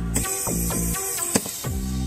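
Background electronic music with repeated falling synth notes over a steady low pulse.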